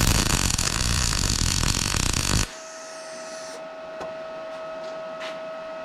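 Wire-feed welder arc crackling steadily for about two and a half seconds, then cutting off, as a washer is welded onto a steel bumpstop. A faint steady whine runs on underneath.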